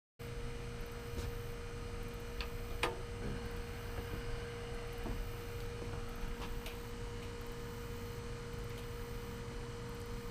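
Grease fire burning itself out in a barrel-style propane cooker, with scattered faint crackles and ticks over a low rumble and a steady hum. There is one sharper click about three seconds in.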